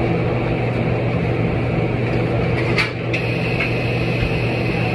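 Steady machine hum, with a sharp click about three seconds in followed by a thin high whine.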